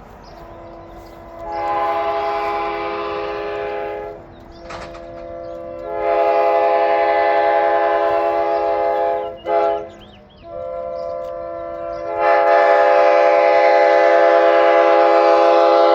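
Nathan K5LA multi-chime locomotive air horn, retuned to a K5L chord with 3D-printed inserts, blowing a steady chord in three blasts. The first is short, about two seconds in. The second is longer, with a brief break and a restart near its end. The last is long and grows louder partway through.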